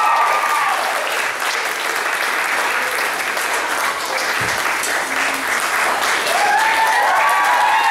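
Audience applauding steadily, with high whooping cheers over the first second and again from about six seconds in.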